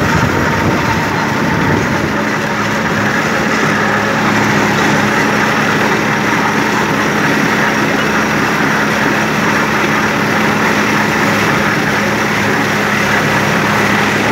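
Tümosan 5275 tractor's diesel engine running steadily under load, driving a Türkay drum mower cutting triticale, heard close from the driver's seat.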